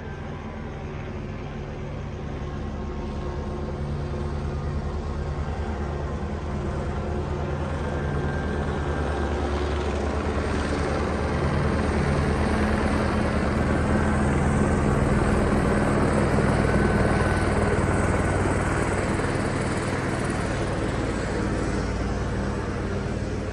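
Police helicopter flying overhead: a steady rotor chop and engine drone that grows louder, peaks a little past the middle, then eases off slightly.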